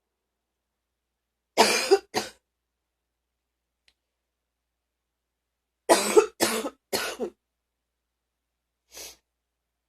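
A person coughing deeply while sick: two coughs about a second and a half in, then a run of three coughs about six seconds in, and a fainter single one near the end.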